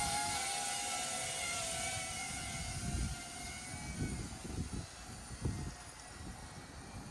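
DJI Avata 2 FPV drone's propellers whining, the pitch wavering as it flies off, fading away within the first few seconds. Gusts of wind rumble on the microphone.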